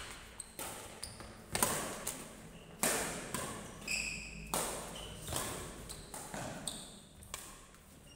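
Badminton rally: rackets striking the shuttlecock roughly once every second and a quarter, each sharp hit echoing in a large hall. Short high squeaks of shoes on the court floor come in between, one near the middle.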